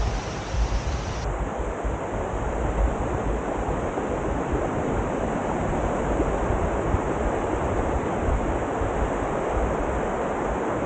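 Wind rushing and buffeting over the microphone, a steady rushing noise with an uneven low rumble; the upper hiss thins out abruptly just over a second in.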